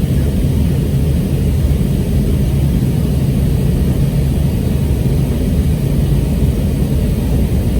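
Steady, loud low drone of a Boeing 717-2BD's rear-mounted Rolls-Royce BR715 turbofan engines and rushing air, heard from inside the passenger cabin.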